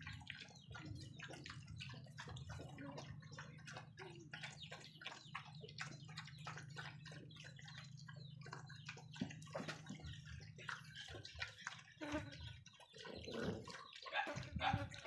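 Several puppies and dogs lapping liquid from a trough: a quick, uneven run of wet tongue-clicks and slurps. A steady low hum runs underneath and fades about three-quarters of the way through.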